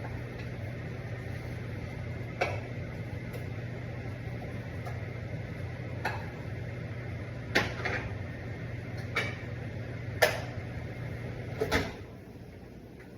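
A utensil knocking against a pan every second or two as rice is stirred in with the onion and fat, over a steady low hum that stops about twelve seconds in.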